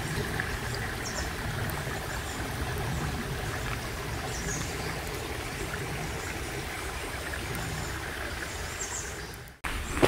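Steady rush of a shallow forest stream trickling into a small pond, with a low rumble beneath; it cuts off suddenly shortly before the end.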